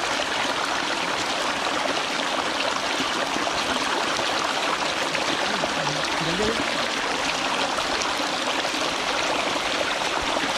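Steady rush of water gushing out onto a mesh fishing net.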